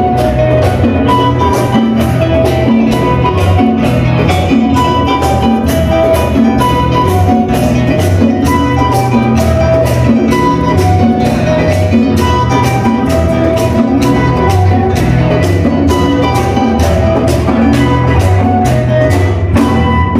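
Live Latin-style ensemble music: strummed acoustic guitars and conga drums keep a steady beat under a melody of held notes and a moving bass line.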